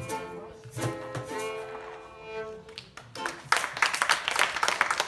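Violin and acoustic guitar play the closing notes of a tune, a final held chord that ends about three seconds in. Then the audience breaks into applause.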